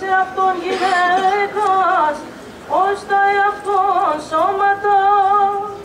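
Byzantine chant sung by a single voice, holding long notes with wavering ornaments, breaking off briefly about two seconds in before going on.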